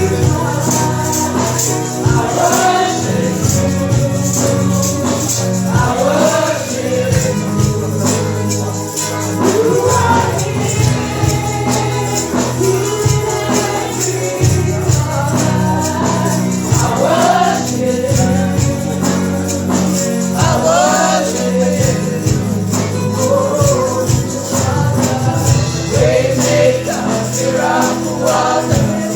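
Congregational gospel music: a choir and congregation singing over instruments, with a tambourine keeping a steady beat.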